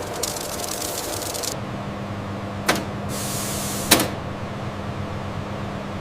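Steady machine hum with two sharp knocks, the second louder; about a second and a half in, the high hiss drops away and a steady low hum remains.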